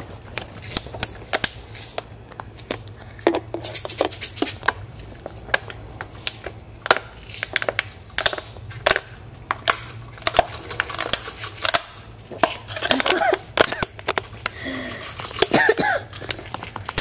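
Handling noise from a camera carried against clothing: fabric rubbing and scraping over the microphone, with many irregular clicks and knocks as the wearer moves.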